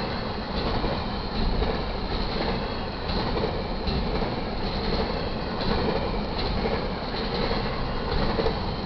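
Double-stack intermodal well cars of a freight train rolling past: a steady rumble of steel wheels on rail with faint irregular clatter.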